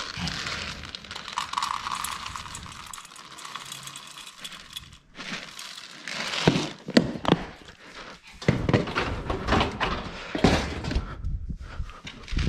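Dry pet kibble being scooped from a plastic storage bin and poured into stainless-steel bowls: a rustling, rattling hiss of the pellets, then many sharp clicks and clatters as they hit the bowls and the plastic bin and lid are handled.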